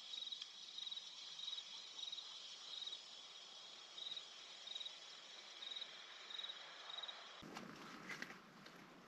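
A cricket chirping faintly: a short high chirp about every two-thirds of a second over a low hiss. About seven and a half seconds in it cuts off abruptly and a rougher outdoor noise takes over.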